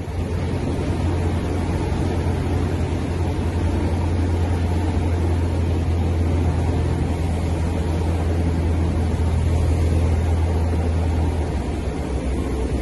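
Cessna 172's piston engine and propeller heard inside the cockpit as a steady low drone over a rushing haze during the landing. The low hum weakens near the end.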